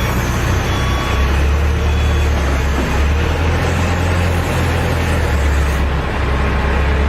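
Heavy diesel engine running steadily with a loud low rumble.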